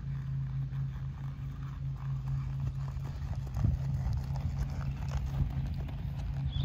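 Hoofbeats of a Tennessee Walking Horse walking on arena sand, soft thuds that grow louder and more distinct about halfway through as the horse passes close by. A steady low hum runs underneath.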